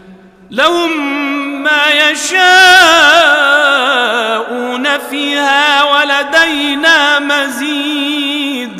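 A man reciting the Quran in a melodic tajweed chant. After a short pause, his voice starts about half a second in and runs through long held notes that waver and slide in pitch.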